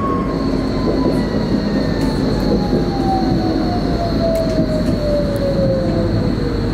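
Tram running on the rails: a steady rumble with a whine that falls smoothly in pitch throughout, and a faint high steady tone that sets in just after the start.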